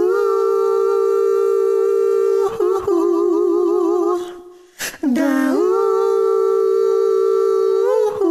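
Unaccompanied humming: long held notes with a slow vibrato, in two phrases that each scoop up in pitch at the start, with a brief break about four seconds in.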